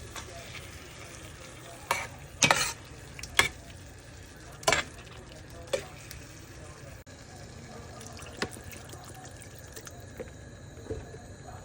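Meatballs sizzling in barbecue sauce in a frying pan. A spoon stirs them, knocking and scraping against the pan several times in the first half, then only now and then.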